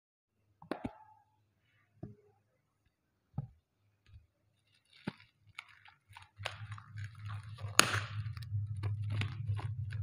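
Plastic shrink wrap on a canvas board crinkling and crackling as fingers pick at it and peel it off, with one loud sharp crack about eight seconds in. Before that there are a few scattered light taps and clicks of handling, and a low hum comes in under the crinkling from about six and a half seconds.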